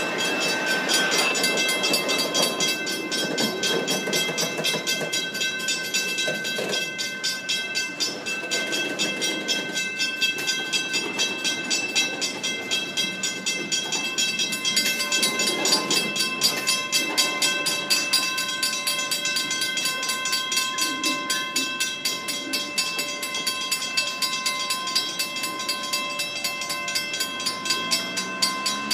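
Freight cars rolling slowly past on the rails: an even rumble with a steady clicking rhythm from the wheels, and a high, steady squeal held over it. The last car passes near the end.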